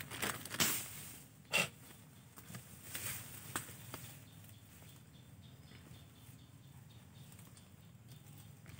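Plastic carrier bag crinkling in a few short bursts as hands handle it, mostly in the first four seconds, then only faint rustling.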